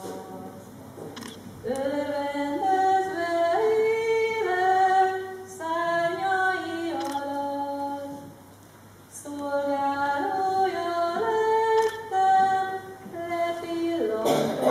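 Women's voices singing a carol unaccompanied, in held notes. The song comes in two phrases, with a short break about eight seconds in.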